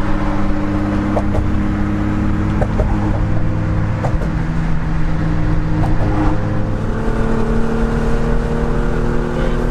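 Inside a Nissan GT-R's cabin while cruising: a steady engine drone with road rumble. The engine note climbs slowly in the second half as the car speeds up a little.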